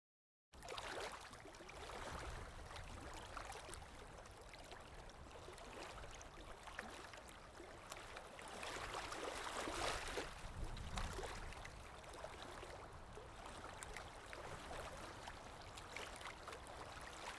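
Small stream of running water babbling steadily with many small splashes, starting abruptly about half a second in and swelling a little around ten seconds in.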